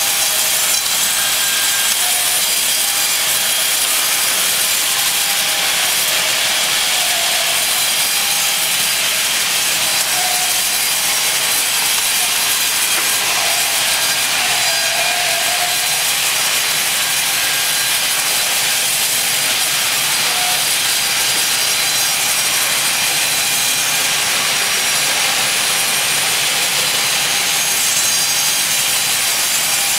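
Large band saw resawing 8-inch-wide walnut planks: a steady, loud hiss of the blade cutting through the wood, with faint short whistles now and then.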